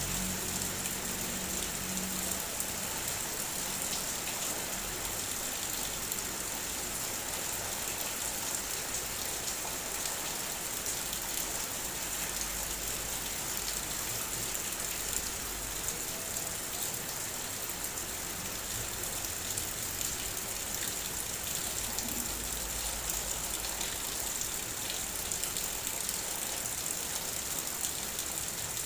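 Heavy rain falling steadily on a car, heard from inside: a dense, even patter of raindrops tapping on the vehicle's body.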